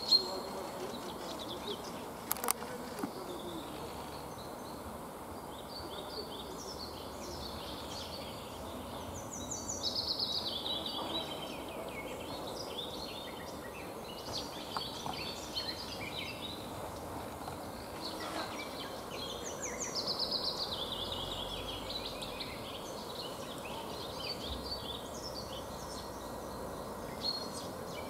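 Songbirds singing and chirping over a steady background hiss, with a longer descending song phrase heard twice, about ten seconds apart. A single sharp click comes a couple of seconds in.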